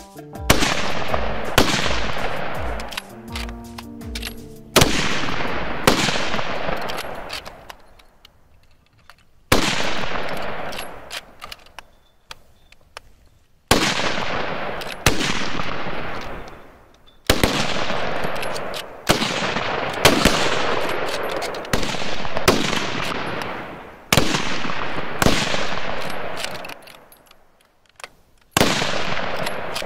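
Several .303 SMLE Lee-Enfield rifles firing one shot after another at irregular intervals, from under a second to a few seconds apart. Each shot is a sharp crack followed by a long echoing decay.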